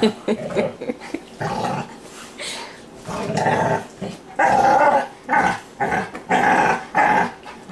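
Two dogs growling at each other in short bursts as they play-fight, mouthing and wrestling; the growls get louder and come closer together in the second half.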